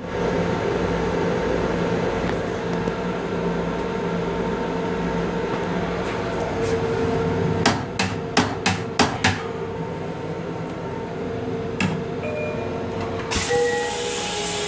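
Steady hum inside a Long Island Rail Road M7 railcar, with a quick run of about five sharp knocks a little past halfway, one more knock a few seconds later, and a burst of hissing starting near the end.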